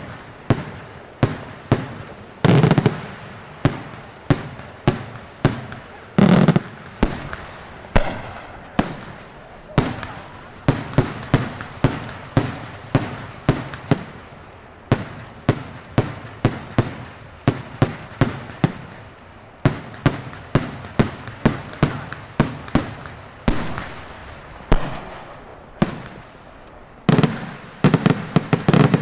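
Daytime fireworks display: aerial shells bursting in a rapid, irregular series of loud bangs, each with a short echoing tail. A denser cluster of bangs comes near the end.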